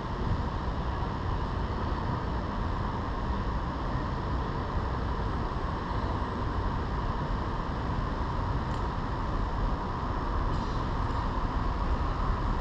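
Steady rumbling wind noise on an action camera's microphone, with only faint ticks from the surroundings.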